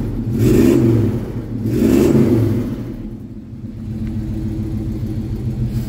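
1986 Chevrolet K10 pickup's engine revving up twice briefly, then settling to a steady idle. The engine is still on its choke, not yet warmed up.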